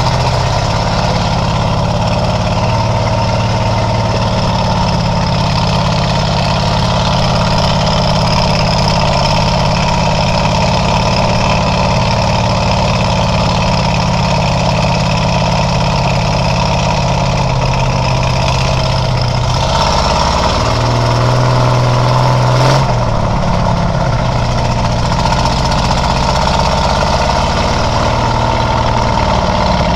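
Engine of a wheeled work machine running steadily as it drives. Its note rises for a couple of seconds about two-thirds of the way through, with a single sharp knock just after.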